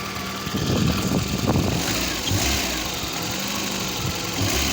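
VAZ-2109's newly fitted four-cylinder fuel-injected engine running on its first start, picking up and getting louder for a couple of seconds soon after the start before settling back. It has a knock that the owner takes for the camshaft.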